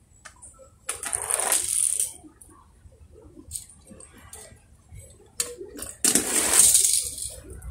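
Small toy cars rolling down a wooden board slope and across concrete: two rolls of about a second each, one about a second in and a louder one about six seconds in, with a few light clicks of the toys between.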